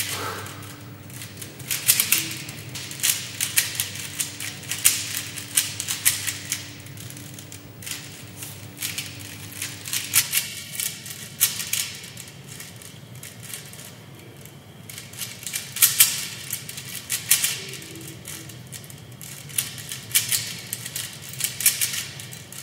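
A plastic Rubik's cube being turned rapidly in a timed speed-solve: bursts of fast clicking and rattling from the layers snapping round, broken by short pauses. A faint steady hum runs under the first ten seconds.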